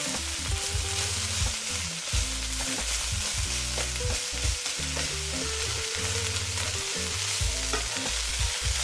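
Shredded pork and vegetables sizzling in a hot wok while a spatula stirs and tosses them, with a steady frying hiss and occasional clicks of the spatula against the pan.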